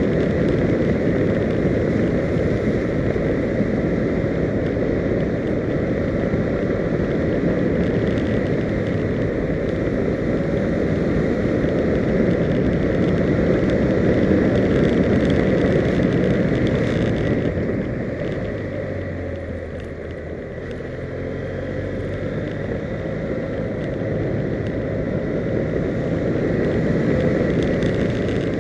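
Heavy wind rush on the microphone of a camera mounted on a vehicle travelling a road at speed. The wind eases about two-thirds of the way in, and the engine's low hum comes through underneath.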